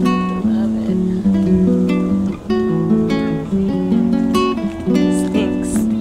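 Background music on a plucked acoustic guitar, a quick, even run of picked notes.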